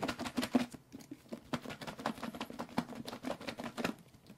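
A lidded plastic kimchi tub being shaken hard by hand, its contents of kimchi, diced onion, egg and flour knocking and rattling inside in quick rhythmic strokes. It is being shaken to mix a kimchi chijimi batter.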